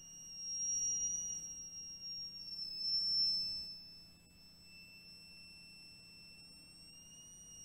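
Electric buzzer sealed inside a syringe giving a steady high-pitched whine. It swells louder twice in the first few seconds, then fades to faint as the plunger draws out and the air around the buzzer thins, carrying less sound.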